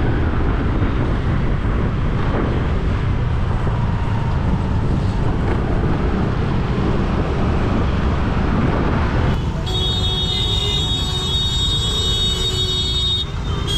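Wind rush and road noise from riding a motorbike in traffic, with a heavy low rumble. About two-thirds of the way through the sound changes abruptly and several steady high-pitched tones join in.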